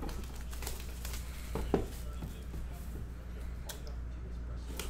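Plastic shrink wrap crinkling and tearing as a sealed cardboard trading-card box is opened, with a few sharp taps, the loudest just under two seconds in, over a steady low hum.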